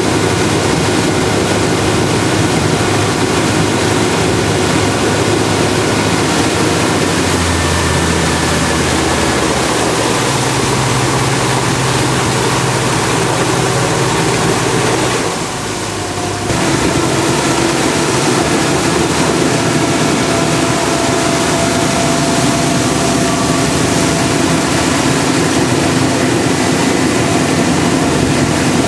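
A river tour boat's engine running steadily under way, with the rush of water and air across the boat. The whole sound briefly drops about halfway through, then returns.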